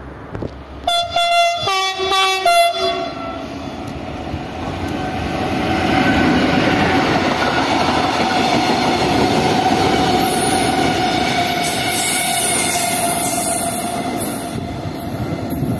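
Freight train sounding a few short blasts on its horn, then passing close by with a steady rolling rumble of wheels on rails, a high squeal joining in about ten seconds in.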